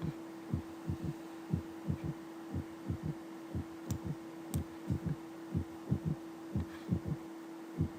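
Recorded heart sounds of a third heart sound (S3) ventricular gallop: low, dull beats repeating in a galloping rhythm over a steady low hum. The rhythm is the sign of impaired filling or distension of the left ventricle.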